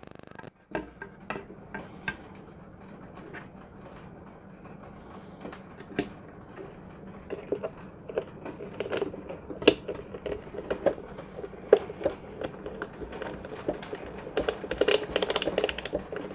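Handling of a plastic DJI Phantom 3 Standard remote controller and its metal antenna bracket: scattered small clicks, taps and knocks, coming thicker and louder near the end.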